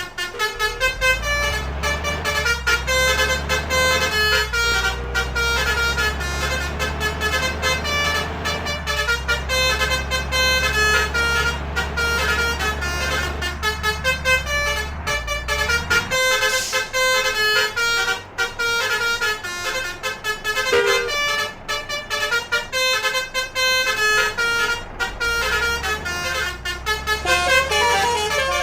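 Indonesian 'om telolet' basuri bus horns, electric multi-trumpet air horns, playing a fast tune of quickly changing notes. A low engine drone runs underneath and drops away about sixteen seconds in.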